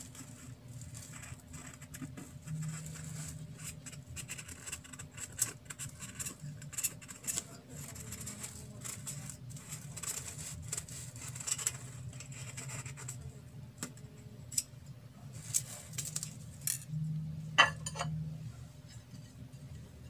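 Light scraping, tapping and clicking against a round metal cake pan as a steamed cake is worked loose from it, with a sharper click near the end.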